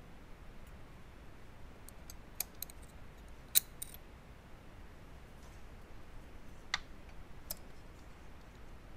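A handful of faint, sharp clicks of tweezers and small metal parts being handled while a Beogram 4002/4004 turntable's transport lock and its metal bracket plate are fitted back together. The sharpest click comes about three and a half seconds in, over a faint low hum.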